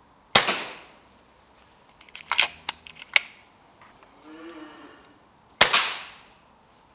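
Two shots from an FX Dreamline Classic pre-charged pneumatic air rifle, about five seconds apart, each a sharp crack that dies away in about half a second. In between comes a quick series of metallic clicks, typical of the action being cycled to load the next pellet.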